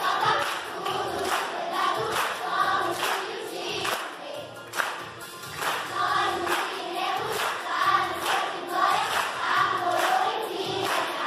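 Large children's choir singing a song together over a steady beat.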